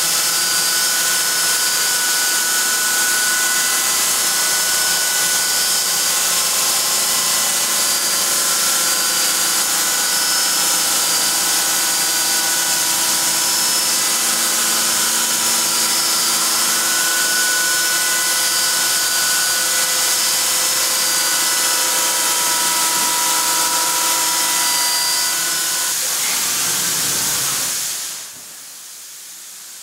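Ibarmia 5-axis machining centre's Kessler spindle running an end mill through a swarf cut on 4140 steel: a steady hiss with several steady whining tones. Near the end the sound drops away to a fainter hiss.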